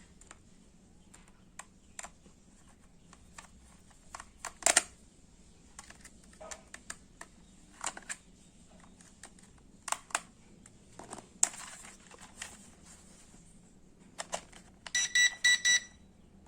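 Hard plastic clicks and taps from handling a JJRC H33 mini quadcopter and its parts. Near the end comes a rapid string of short, high electronic beeps, typical of the drone set powering on or pairing.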